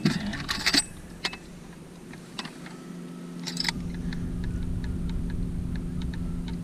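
Small metal clicks and clinks as a digital fish scale is handled and lifted by its T-handle, its hook and clip knocking together, mostly in the first second. From about three and a half seconds a steady low hum with a rumble beneath it comes in.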